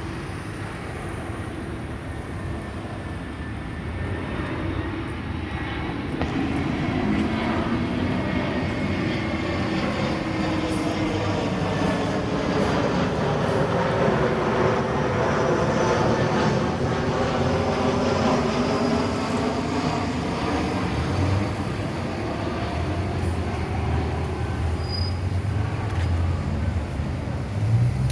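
Airbus A321-211's twin CFM56 turbofans on final approach, passing overhead: steady jet engine noise that builds over the first few seconds, with a phasing whoosh whose tones sweep down and back up as it goes by. A low rumble rises near the end.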